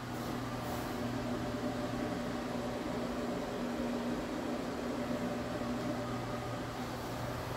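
Steady hum of an electric fan motor with an even airy hiss, heard in a small tiled bathroom.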